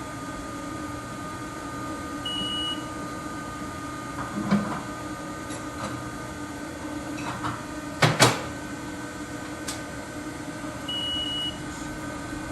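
Haas VF-2SS vertical machining centre running with a steady hum. A short series of electronic beeps sounds twice. A pair of sharp mechanical clunks comes about two-thirds of the way through.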